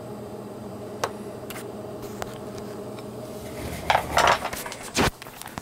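Handling noise at an electronics workbench: a few light clicks, a clatter and rustle about four seconds in, and a sharp knock about five seconds in, over a steady hum of bench test equipment.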